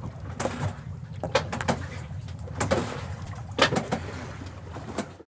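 Boat engine running with a low steady hum, under scattered knocks and clicks of gear and the phone being handled in the boat; the sound cuts off suddenly near the end.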